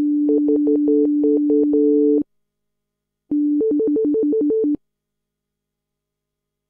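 Alesis Ion synthesizer playing two short phrases. First a held note with a higher note struck repeatedly over it, both sounding at once. Then, after a pause of about a second, the same two pitches trill one at a time: the synth in monophonic mode, where each new note cuts off the held one.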